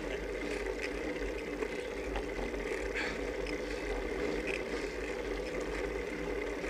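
Steady ride noise of a road bicycle climbing slowly on pavement, heard from a bike-mounted camera: a low wind rumble on the microphone with tyre and drivetrain hum, and a few faint ticks.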